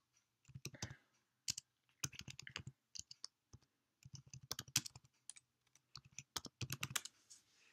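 Typing on a computer keyboard: several short flurries of keystrokes with pauses between them.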